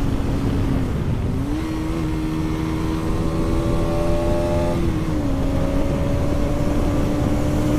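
Bajaj Pulsar RS200's single-cylinder engine on its stock exhaust, running steadily while riding, with wind noise over the microphone. The engine note dips about a second in and picks up again, then drops a step about five seconds in.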